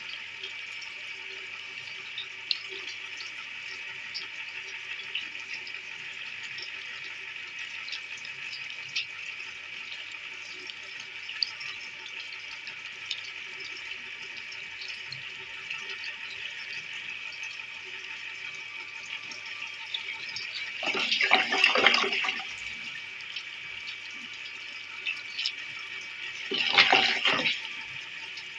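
Water of a whirlpool vortex rushing steadily as it drains down the hole, with small ticks. Twice, about 21 s and 27 s in, it turns loud and watery for a second or two.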